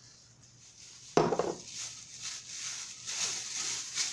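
Kitchenware clattering: a sudden loud knock about a second in, then lighter knocks and handling noises, as a baking pan is got out and handled.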